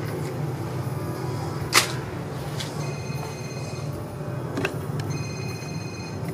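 An electronic ringing tone sounds twice, each time for just under a second, about two seconds apart, over a steady low hum. A single sharp knock about two seconds in is the loudest sound.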